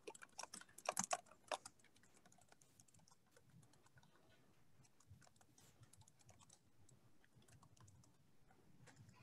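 Typing on a computer keyboard, faint keystroke clicks heard over a video call: a quick flurry in the first couple of seconds, then lighter, scattered taps.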